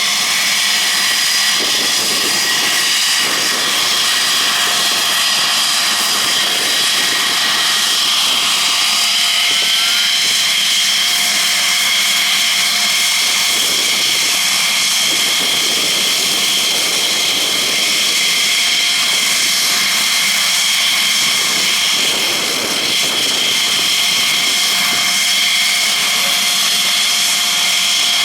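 Jet fighter engines running steadily on the ground, a loud even rush with a high, constant whine.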